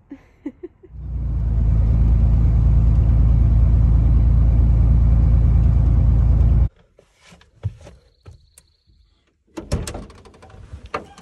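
Loud, steady low rumble of a vehicle driving, heard from inside the cabin, cutting off abruptly about seven seconds in. Then come scattered clicks and knocks and a brief high tone from work at the opened driver's door panel.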